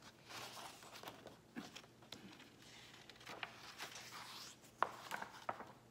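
Pages of a large hardcover picture book being turned by hand, with paper rustling and flapping and a sharp tap a little before the end.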